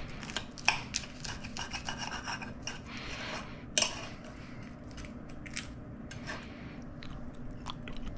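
Table knife sawing through crispy roasted chicken skin, with a rasping crackle and small clicks of the blade and fork against a ceramic plate. There is one sharper click about four seconds in.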